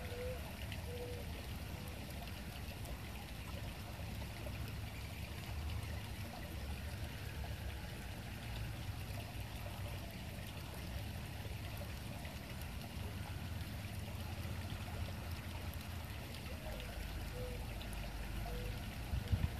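Steady outdoor rushing noise with a low, uneven rumble, and a few short faint chirping notes near the start and again near the end.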